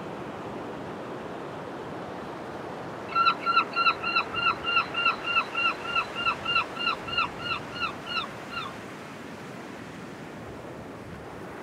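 A bird calling in a fast run of about twenty short, slightly falling notes, about four a second, that starts some three seconds in and fades out after five or six seconds. Steady surf wash lies under it.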